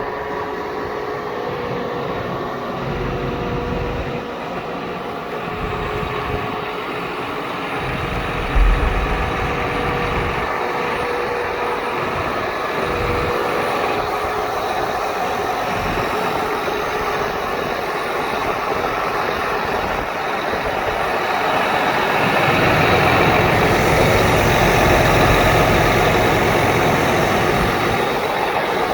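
John Deere 8270R tractor's 548 cubic-inch diesel engine running steadily, growing louder from about 22 seconds in, with a single sharp thump about 9 seconds in.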